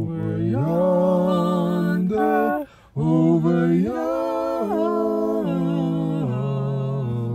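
A man and a woman singing a gospel song unaccompanied, drawing out long held notes together, with a short pause for breath about three seconds in.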